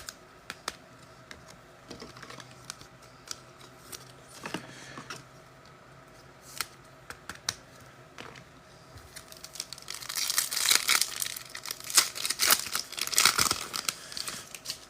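Trading cards and their packaging being handled: scattered light clicks and taps, then, about ten seconds in, a few seconds of dense crinkling and tearing as a foil card pack is ripped open.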